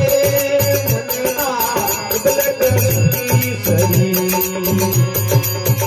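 Rajasthani folk devotional music: a harmonium carries the melody over a dholak's steady rhythm, with jingling hand-held percussion.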